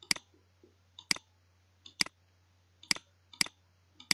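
Computer mouse button clicking about once a second, six times, each a faint tick followed by a sharper click, as it steps through presentation slides. A steady low hum runs underneath.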